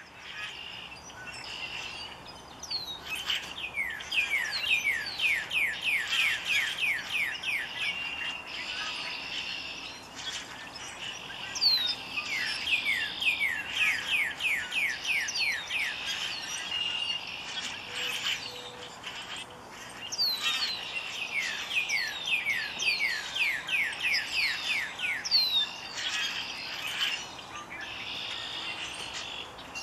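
Male northern cardinal singing: three bouts of rapidly repeated downslurred whistles, about three notes a second, each bout several seconds long with pauses between.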